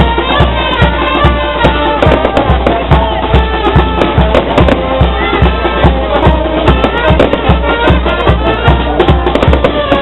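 Music with a steady drum beat, about two beats a second, under a pitched melody line.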